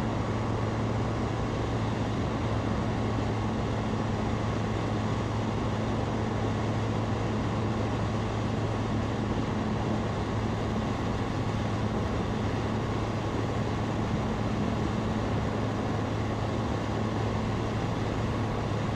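Steady low drone of a Zenith STOL CH 701's 100-hp Rotax 912ULS flat-four engine and propeller in flight, with rushing air.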